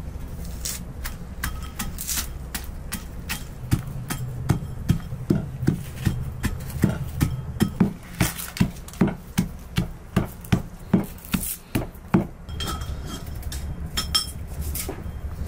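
Brass pestle pounding in a brass mortar: sharp metallic clinks about twice a second, strongest through the middle of the stretch and lighter toward the end, over a low steady rumble.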